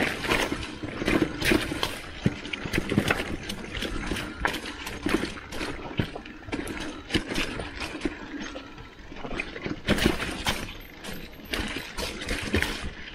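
Mountain bike riding down a bumpy dirt forest trail: tyre noise on the dirt with a constant run of irregular knocks and rattles from the bike jolting over the bumps.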